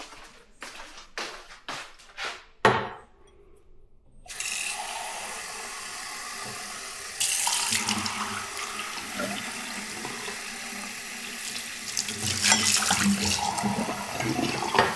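A few quick clicks and a sharp knock, then a steady rush of running water starts about four seconds in and grows louder about seven seconds in.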